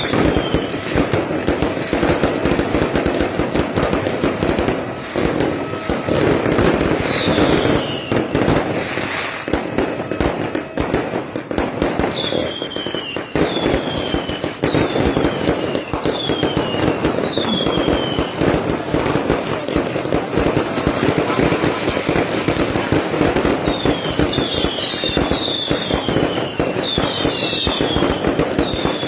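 Many fireworks and firecrackers going off at once, a continuous dense crackle of pops, with short whistles that fall in pitch again and again, most of them near the end.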